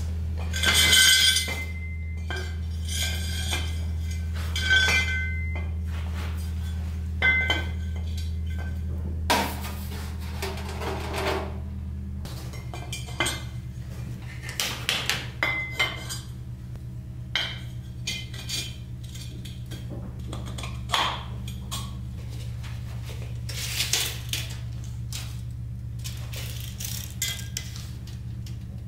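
Steel square tubing clinking and knocking against itself and a concrete floor, with magnetic welding squares clacking onto it as the pieces are set into a square frame. The first few knocks ring with a clear metallic tone. A low steady hum runs underneath.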